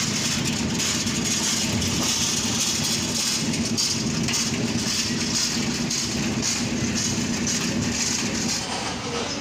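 Steady street noise: an even hiss with a low engine-like hum underneath, dipping slightly near the end.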